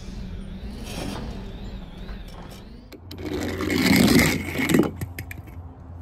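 Small die-cast toy jeep sliding down a wet plastic slide: a scraping rush that starts about three seconds in, is loudest around four seconds and stops about a second later, followed by a few light clicks.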